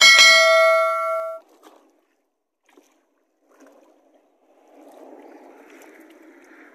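A notification-bell chime sound effect rings out loudly with several tones at once and cuts off after about a second and a half. Then faint water sloshing and swishing around a person wading waist-deep in a lake.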